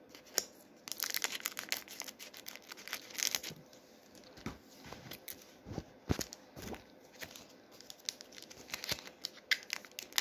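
A Pokémon TCG booster pack's foil wrapper being torn open and crinkled by hand: irregular crackling and ripping all through.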